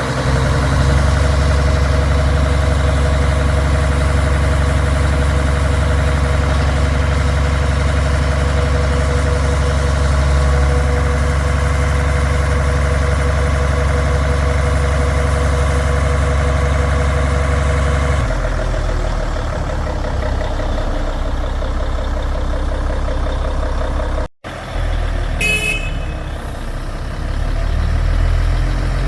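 The diesel engine of a Zoomlion 47 m truck-mounted concrete pump runs steadily, with a constant whine over its low rumble. The sound changes about 18 seconds in and cuts out briefly near 24 seconds, and a short high beep follows.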